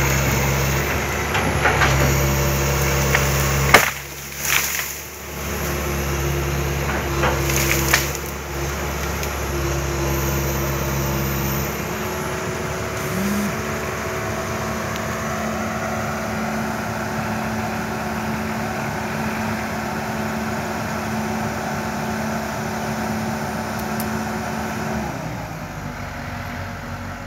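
Komatsu PC160-8 LC excavator's diesel engine running under hydraulic load, with a steady hum whose pitch shifts about halfway through and drops off near the end. A few sharp cracks or knocks sound about four and eight seconds in.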